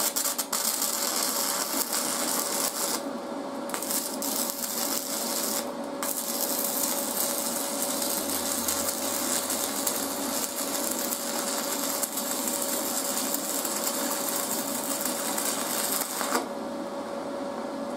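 Stick-welding arc crackling and sputtering as the electrode burns at a low 70 amps. The arc goes out briefly twice, about three and six seconds in, because the amperage is too low, then stops shortly before the end, over a steady hum.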